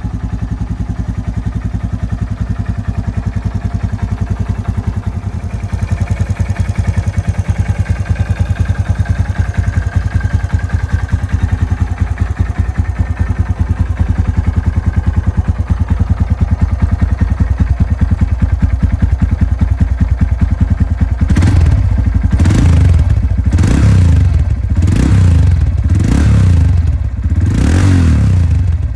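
Honda Grom JC61's single-cylinder 125 cc engine through a titanium full exhaust with a CRF150R stock silencer, idling steadily with an even beat. About 21 seconds in it is blipped repeatedly, short rev-ups roughly once a second, each rising and falling back to idle. The tone is quiet, thick and crisp.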